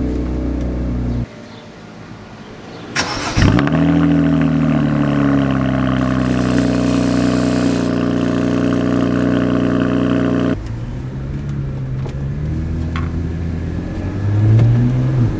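BMW 335is N54 twin-turbo straight-six being started about three seconds in: a short crank and a flare, then a high idle whose pitch slowly settles. After an abrupt change about ten seconds in, it idles lower and is blipped once near the end, the pitch rising and falling.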